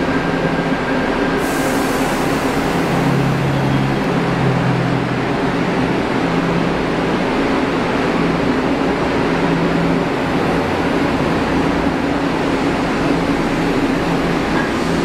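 Seoul Line 3 subway train with GEC chopper traction control pulling away from the platform. Its motor tones come and go at shifting pitches over a steady rumble of wheels on rail. A high hiss starts suddenly about a second and a half in and fades over several seconds.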